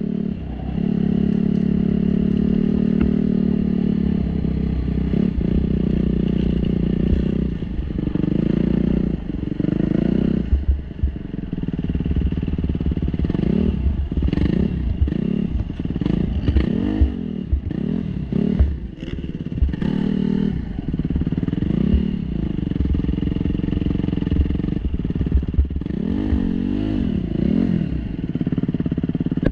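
Motocross bike engine heard close up from the rider's own helmet camera. It runs at a fairly steady pitch for the first several seconds, then settles low and is blipped up and down over and over through the second half.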